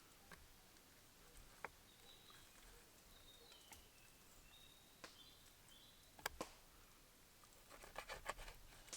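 Quiet ambience with scattered sharp clicks and taps, a quick run of them near the end, and a few faint high chirps.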